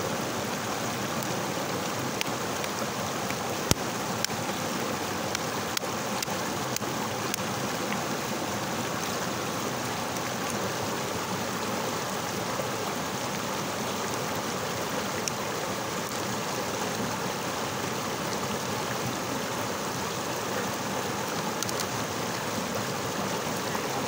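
Small rocky stream tumbling over boulders in a short cascade: a steady rush of water, with a few brief clicks in the first seven seconds, the sharpest about four seconds in.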